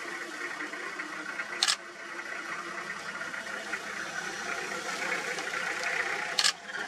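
Two sharp double clicks about five seconds apart, typical of a camera shutter firing, over a steady background hiss.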